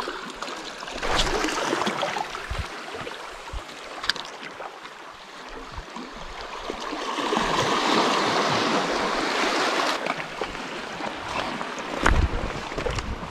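Seawater washing and lapping among rock ledges at the shoreline, swelling into a louder surge about six seconds in and easing off after about ten seconds. Scattered small clicks and knocks run through it, and there is a low thump near the end.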